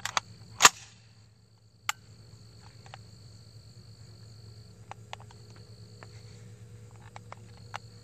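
A few sharp knocks as the SKS rifle is brought up to the shoulder, the loudest about half a second in, then only scattered faint clicks while it is held on aim. Insects trill steadily in the background.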